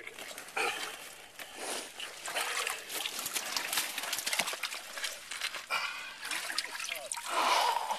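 Hand digging in wet sand and seawater inside a bottomless metal can sunk into the beach to reach a geoduck clam: irregular sloshing, splashing and squelching of water and mud.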